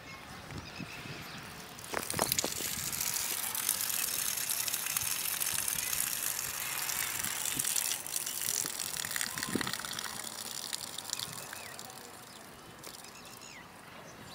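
A crackling hiss rises about two seconds in, holds, and fades near the end. Through it come a couple of short tearing sounds of a cow biting off grass close by.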